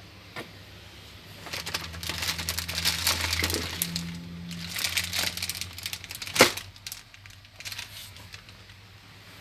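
Plastic wrapping crinkling and crackling as it is handled, in a dense run of crackles lasting several seconds, with one sharp crack a little after six seconds in. A low steady hum runs underneath.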